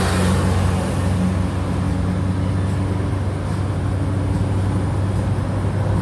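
Car engine running with a steady low hum, with the sound of road traffic, in a crawling traffic jam.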